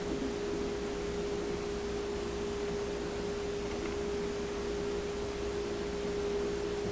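A steady hum on one constant pitch, unchanging, over faint background hiss.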